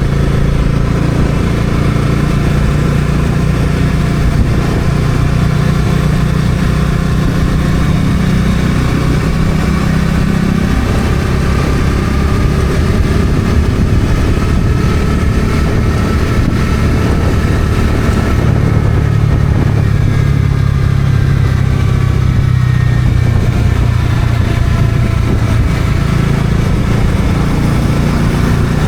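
Bajaj Dominar 400's single-cylinder engine running as the motorcycle is ridden on the road, with steady wind and road noise. The engine note shifts in pitch a couple of times as the speed changes.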